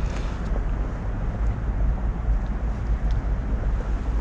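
Wind buffeting the microphone outdoors, a steady low rumble that rises and falls.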